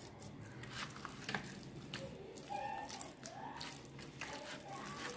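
A hand squishing fish pieces in a wet spice paste in a plastic bowl: irregular soft squelches and clicks as the fish is kneaded into the masala.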